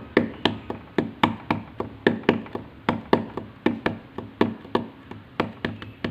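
Hands drumming and tapping on a tabletop: a run of sharp taps and knocks, about four a second, in a loose rhythm.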